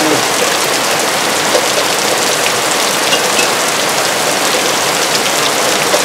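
Heavy rain falling in a steady downpour, with faint ticks of single drops hitting close by.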